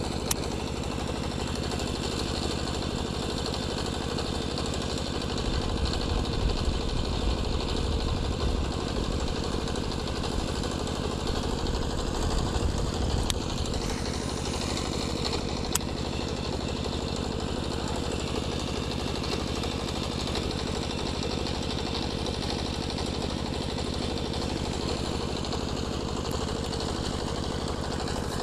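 A small engine running steadily, with a heavier low rumble for several seconds in the middle.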